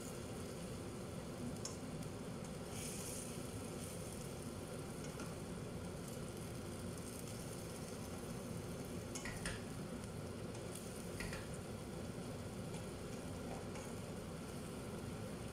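Food sizzling as it fries in a metal pan, stirred with a plastic spatula, with a few short clicks of the spatula against the pan.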